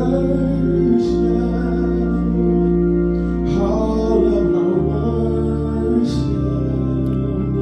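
Gospel song in a church service: an organ holding chords under a singing voice.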